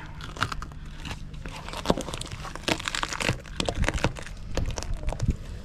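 Knife crunching and crackling through the head and bones of a hottentot sea bream being butterflied, a run of irregular cracks and scrapes.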